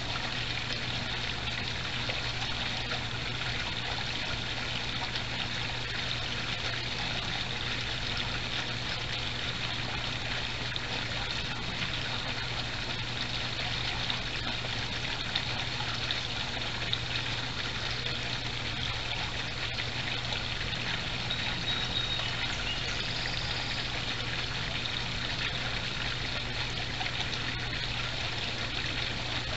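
Backyard koi pond water trickling and splashing steadily, with a faint steady low hum underneath.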